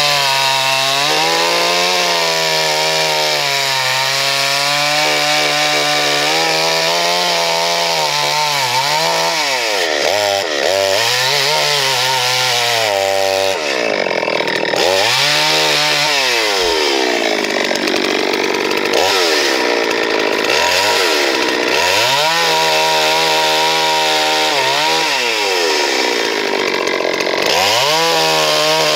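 A Farmmac F380, a 72cc two-stroke chainsaw that is a Chinese-made clone, runs at high revs while cross-cutting logs. Its engine pitch sags each time the chain loads up in the wood and climbs back when the load eases, over and over. It runs steady under load for the first several seconds.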